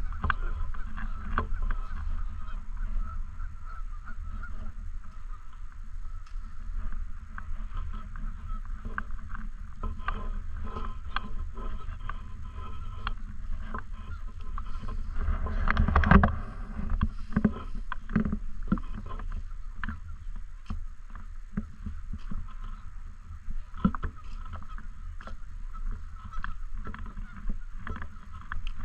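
A flock of Canada geese honking: many short, overlapping calls throughout, loudest about halfway through, over a steady low rumble.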